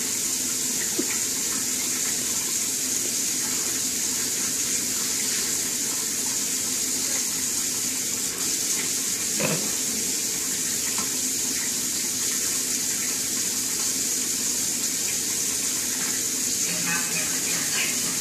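Kitchen faucet running a thin, steady stream of water into a stainless steel sink.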